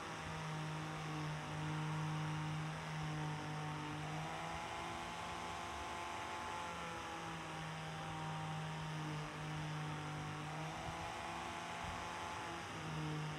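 Angle grinder running steadily with a sanding disc while a knife handle is pressed against it. The motor's whine slowly sinks in pitch under the pressure, then climbs back when the pressure eases, twice.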